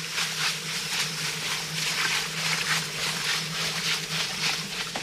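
Rhythmic wet swishing, about two to three strokes a second, from a mash of coca leaves soaked in lime, sulfuric acid and kerosene being worked in a plastic-lined pit. A steady low hum runs underneath.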